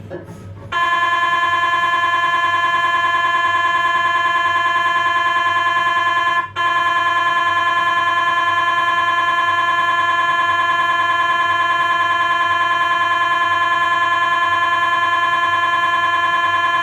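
Philips 1.5 T MRI scanner's gradient coils buzzing loudly during a lower-spine imaging sequence: a steady, high, buzzing tone with a fine rapid pulse. It starts about a second in, stops for a moment around the middle, then resumes.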